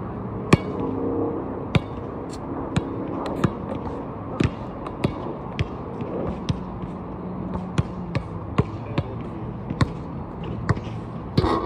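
A basketball bouncing on an outdoor court: sharp, irregularly spaced thuds, roughly one every second or less, with a few quicker runs of bounces.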